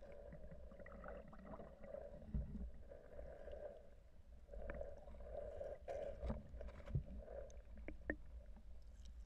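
Muffled underwater noise picked up by a submerged camera: a constant low rumble with water swirling and swelling around it, and a few dull knocks, the loudest about seven seconds in.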